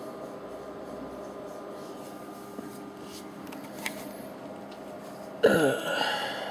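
Steady electrical hum with several fixed tones, a couple of faint clicks in the middle, then about five seconds in a sudden short, loud throaty vocal noise from a man.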